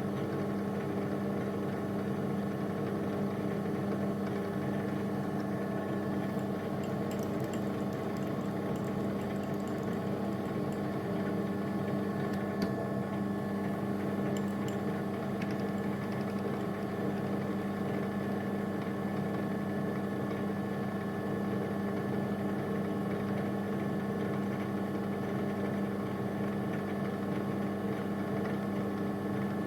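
Electric motor of a machine tool running steadily, a constant hum with several steady tones, with a few faint light ticks in the middle.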